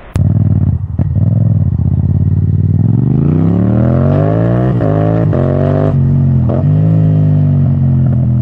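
Motorcycle engine pulling away under acceleration, its pitch climbing, dipping briefly at a few gear changes, then holding steady at cruising speed.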